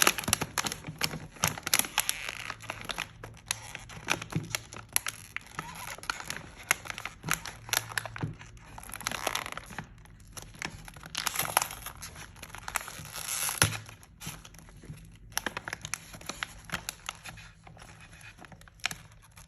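Plastic packaging of a Zuru 5 Surprise Mini Brands capsule crinkling and tearing as it is unwrapped by hand, in irregular crackles with busier stretches.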